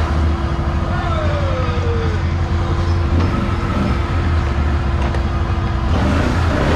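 Can-Am Renegade 1000 ATV's V-twin engine idling with a steady low rumble and a constant hum. A short falling whine passes about a second in.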